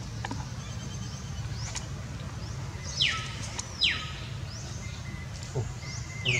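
Animal calls: two sharp, high calls that fall steeply in pitch, about a second apart, and a third near the end, over faint high chirping.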